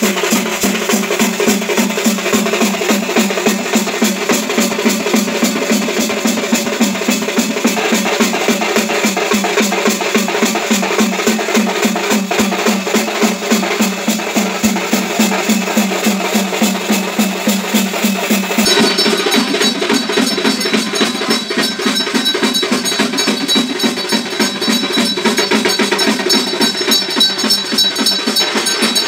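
Drums and percussion playing a fast, steady beat over a held low tone. About two-thirds of the way in, the sound changes abruptly and high, steady ringing tones join.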